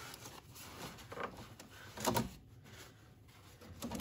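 Towel rubbing and rustling over engine parts as the engine bay is wiped dry, with a few light knocks and clunks, the loudest about two seconds in and another near the end.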